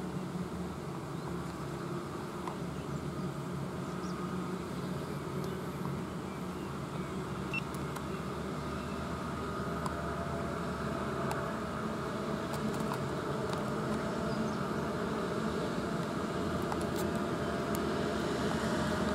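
Diesel goods trucks running on the road below: a steady low engine drone that grows slightly louder in the second half.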